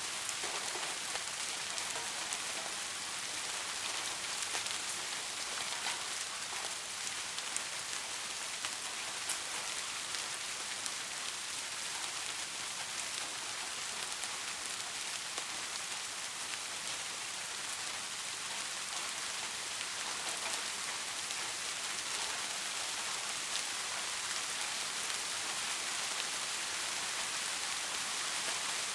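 Steady rain falling on hard surfaces, an even hiss with many small drop ticks throughout.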